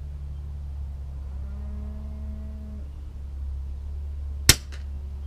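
A single shot from a suppressed .22 Umarex Gauntlet 2 PCP air rifle: one sharp crack about four and a half seconds in, over a steady low rumble. A faint, drawn-out low tone sounds for about a second near the middle.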